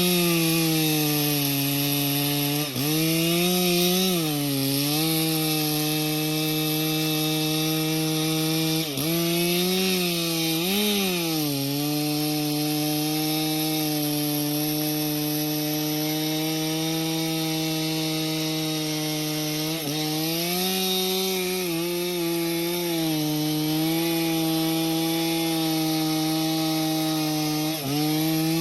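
Stihl chainsaw running at high revs while cutting cedar wood. The engine note holds steady and dips briefly several times as the chain bites, then recovers.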